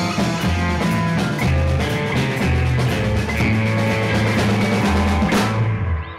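Rock band music: a drum kit with cymbals, electric guitar and bass playing, dropping away about six seconds in.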